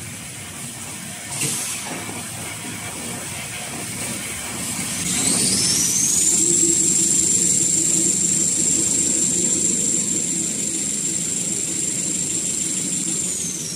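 Paper-roll production line machinery running. A short air hiss comes about a second and a half in. Then a motor spins up into a steady high whine, runs for about seven seconds and winds down near the end, over the line's lower hum.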